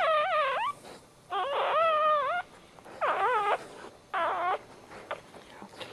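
Newborn puppy crying in four short, wavering squeals, about one a second, while the mother dog licks it.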